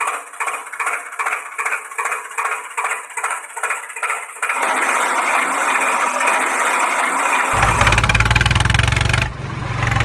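Tractor engine sound chugging in an even rhythm of about three beats a second, then changing at about four and a half seconds to a steady, rougher run, with a deep rumble joining in near the end.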